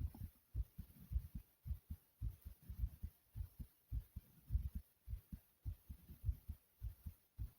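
A person's heart beating fast and hard, raised by jumping jacks: deep double thumps repeating steadily a little under two times a second.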